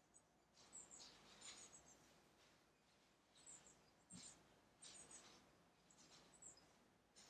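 Near silence: faint soft rustles, each with a few tiny high ticks, about once a second.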